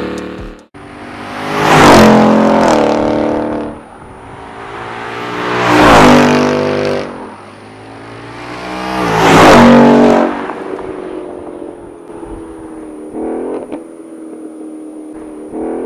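Ford Mustang GT's 5.0 V8 through a REMUS aftermarket exhaust, revved three times, each rev climbing for about a second and falling away more slowly, then settling to a steady idle with two short throttle blips near the end.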